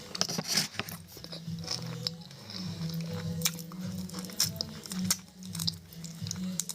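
A person chewing and biting food close to the microphone, with irregular crunching and mouth clicks.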